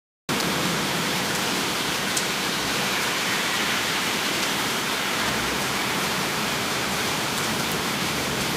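Heavy rain falling in a dense, steady downpour, starting abruptly about a quarter second in, with faint scattered drop ticks.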